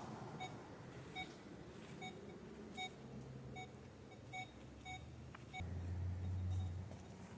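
Metal detector giving short, high electronic beeps, repeating about once every second. A low hum comes in partway through and swells briefly near the end.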